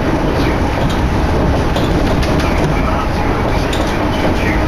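Chuo Line electric train running along the track, heard from inside a carriage: a loud, steady rumble of wheels on rail with wind noise from an open window, and faint clicks now and then.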